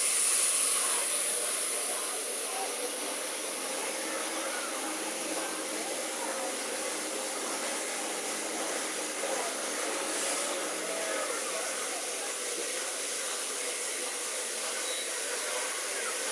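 Steady hiss of steam from the standing A1 Pacific steam locomotive 60163 Tornado, brighter and a little louder for the first couple of seconds, then even, with people talking on the platform underneath.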